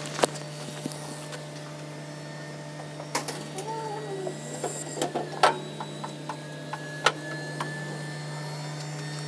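Low-loader trailer's steel loading ramps being raised, with several sharp metallic knocks and clanks and a short squeak about four seconds in, over a steady low hum.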